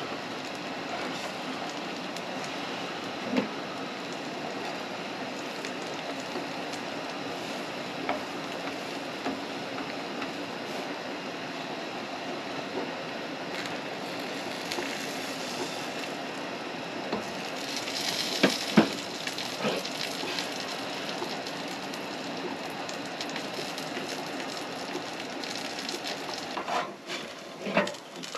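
Eggs and breakfast sizzling in a frying pan on a Coleman propane camp stove, a steady frying hiss. A few sharp knocks of pan and utensils, loudest in a cluster about two-thirds of the way in and again near the end as the pan is handled.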